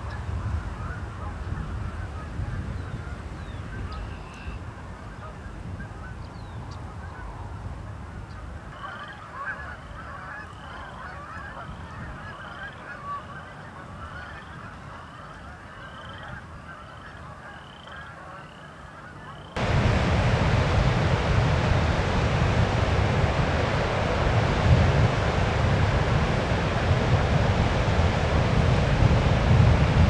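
A flock of Canada geese calling over a low wind rumble. In the middle the flock chatters and one goose honks in a steady run of about a dozen calls, more than one a second. About two-thirds of the way in, a loud steady rushing noise cuts in suddenly and drowns the rest.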